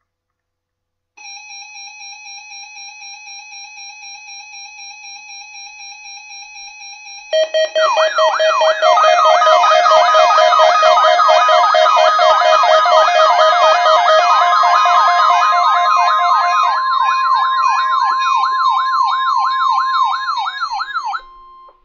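Electronic alarm tones. A quieter, steady warbling tone comes first. About seven seconds in, a much louder siren starts, sweeping up over and over about twice a second over steady held tones. Partway through, a single steady tone joins, and everything cuts off suddenly near the end.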